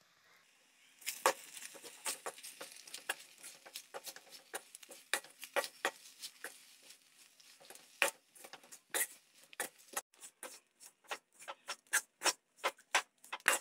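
A metal spatula scraping and knocking against an aluminium kadai as onions and spice powders are stirred and fried, starting about a second in. The strokes come irregularly, about two to three a second, and grow sharper and more separate near the end.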